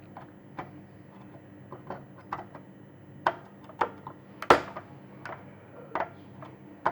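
Cutters snipping through the pins of a dead processor chip one by one, close to the chip body, so it can be cut off the MPU3 board rather than desoldered. It comes as a string of about a dozen sharp, irregular clicks, one or two a second, with the loudest about halfway through.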